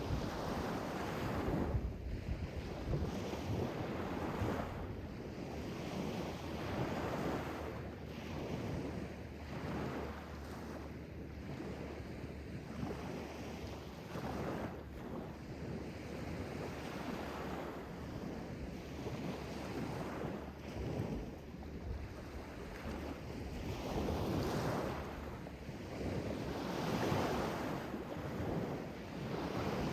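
Sea waves washing in and drawing back, swelling and fading every few seconds over a steady low rumble.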